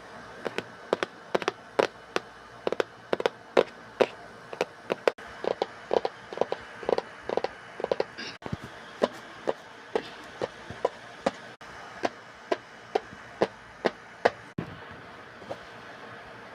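A long irregular series of sharp plastic clicks and taps, roughly two to three a second, from earmuffs and their packaging being handled and opened.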